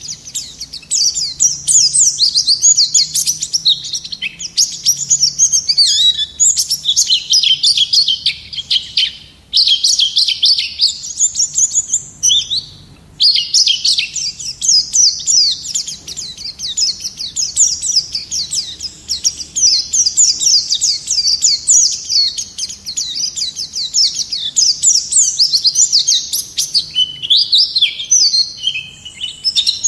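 White-eye (pleci) singing vigorously, a fast run of high chirps and trills that barely stops, with two brief pauses about nine and thirteen seconds in.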